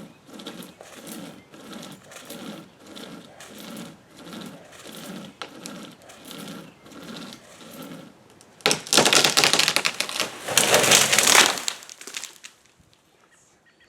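Rope saw (hand-pulled chain saw on ropes) rasping through a silver maple limb in even back-and-forth strokes, about one and a half a second. About nine seconds in the sawing gives way to a loud crash in two surges as the cut limb breaks off and falls through the branches onto the house.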